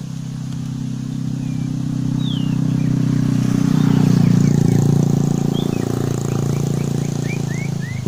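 A motorcycle engine passing by, growing louder to a peak about halfway through and then fading a little. Short bird chirps are heard over it, several in quick succession near the end.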